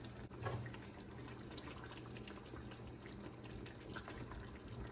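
Faint liquid sounds in a kitchen, with light scattered ticks over a steady low hum and one soft knock about half a second in.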